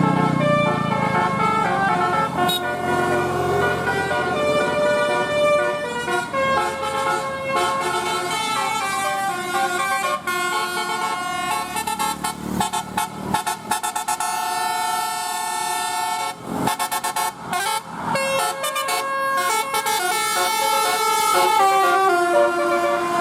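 Bus telolet horn: a bank of multi-tone air horns playing a fast tune, several notes sounding together and changing pitch in quick steps, with a few short breaks partway through.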